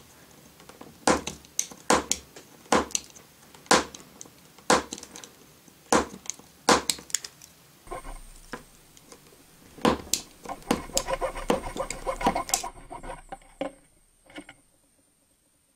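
Craft knife blade shaving small slivers off the end of a plastic K'nex connector rod: short sharp cutting clicks about once a second, then a quicker run of cuts, stopping near the end.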